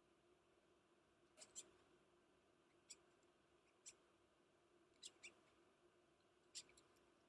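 Large black spruce longhorn beetle (Monochamus sartor) stridulating: about seven short, faint squeaks, some in quick pairs, made as it is disturbed by tickling.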